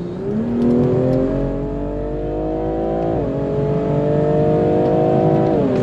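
BMW M340i's tuned turbocharged 3.0-litre inline-six (B58) under hard acceleration: the engine note climbs steadily, drops at an upshift about three seconds in, then climbs again to a second upshift near the end.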